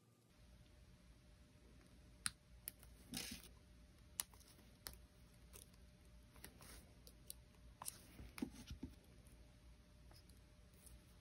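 Faint, scattered clicks and taps of small jewelry pliers working thin gold-fill wire, with a short scrape about three seconds in.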